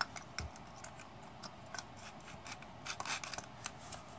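Metal parts of a 10MT starter clicking and scraping against each other as the drive-end housing is worked onto the armature and pinion drive. Small irregular clicks and light rubbing, with a duller knock about half a second in.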